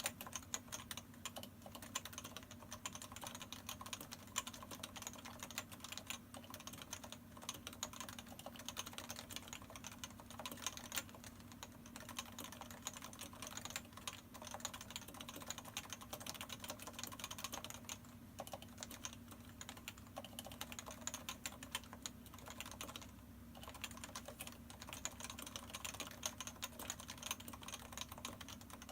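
Topre Realforce 104U electrostatic capacitive keyboard with 45 g uniform-weight keys and PBT keycaps, typed on continuously in a quick, steady stream of keystrokes. Its stabilizers are lubricated with Krytox 205.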